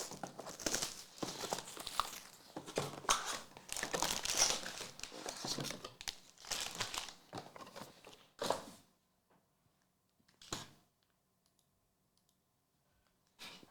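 Plastic trading-card pack wrappers crinkling and tearing as packs are handled and ripped open: a dense crackle for about eight seconds, then quiet with two short rustles.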